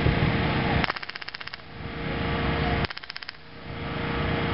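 Machine gun firing blanks in two short rapid bursts, about two seconds apart, each a quick string of sharp reports.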